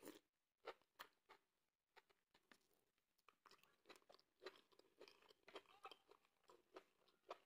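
Close-up mouth sounds of someone chewing a hand-eaten mouthful of swallow and slimy ogbono soup: faint wet chewing and lip-smacking, a steady run of short sharp clicks.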